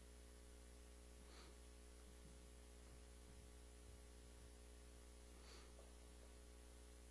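Near silence with a steady low electrical hum from the sound system, and two faint brief noises.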